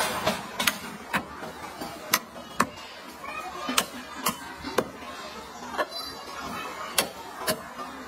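Knife chopping meat on a cutting board: about eleven sharp, uneven chops, roughly one or two a second.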